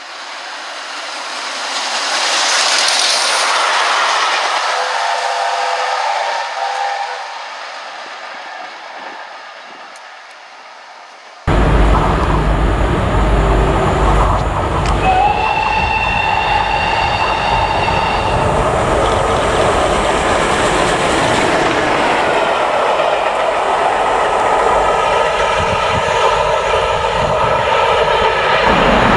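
LNER A4 Pacific steam locomotive approaching and running through a station, growing louder to a peak with a brief whistle, then fading. After a cut, 46233 Duchess of Sutherland, an LMS Princess Coronation Pacific steam locomotive, runs past with its support coach: a loud steady rumble with wheel clatter, and its whistle sounding for about three seconds.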